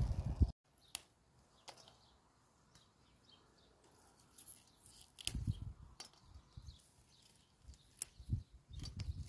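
Snap peas being picked by hand: scattered sharp snaps and clicks as pods come off and drop into a perforated stainless steel colander, with low rustling bumps from the pea plants.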